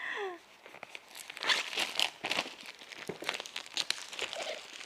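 Packaging crinkling and rustling in irregular quick crackles as a box is opened and unpacked by hand.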